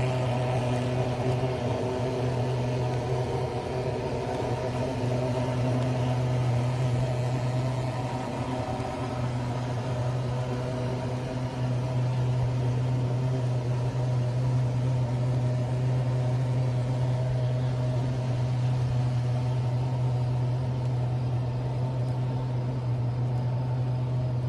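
A steady machine hum, a motor running continuously with a strong low drone and unchanging overtones above it.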